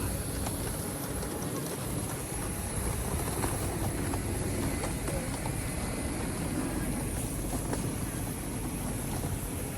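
Steady low rumble of a moving vehicle, with no clear rhythm.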